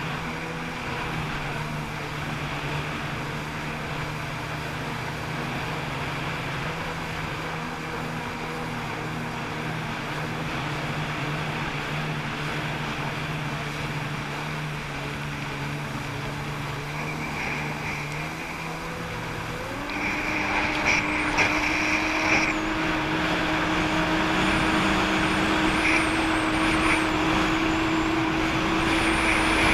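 Jet ski engine running at a steady low speed, then revving up about two-thirds of the way through and holding a higher, louder pitch as the craft speeds up.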